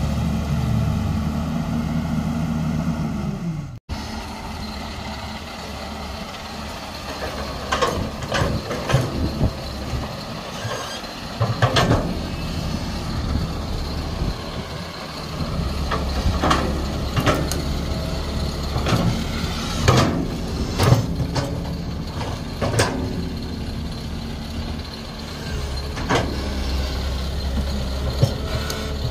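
Tracked hydraulic excavator working a trench: its diesel engine runs steadily while the steel bucket digs, with repeated clanks and scrapes of metal against earth and stones. The engine note dips and the sound breaks off suddenly about four seconds in, then the digging clanks carry on over a lower engine drone.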